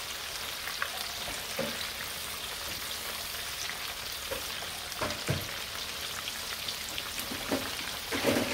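Stuffed catfish fillets deep-frying in canola oil in a Dutch oven: a steady bubbling sizzle full of small crackles, with a few louder pops, the biggest about five seconds in and near the end.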